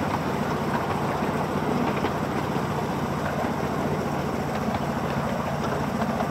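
7¼-inch gauge miniature railway train running along the track: a steady low hum from the locomotive over the rumble of the wheels on the rails.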